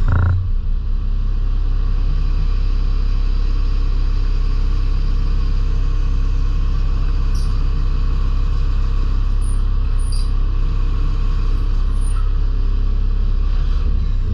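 DMG Mori NLX2500SY CNC turn-mill lathe running: a steady, loud low hum with a brief louder burst right at the start and a few faint ticks later on.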